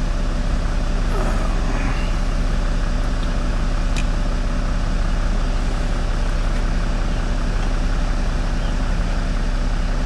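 Land Rover Discovery's 3.0-litre V6 diesel engine idling steadily.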